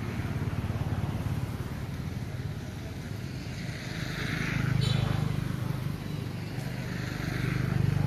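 Steady low hum of a motor vehicle's engine running nearby, growing louder twice as it passes.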